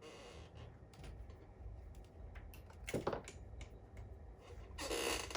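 Handling noises: scattered light clicks, a short scrape about three seconds in and a louder rustling scrape near the end, over a low steady hum.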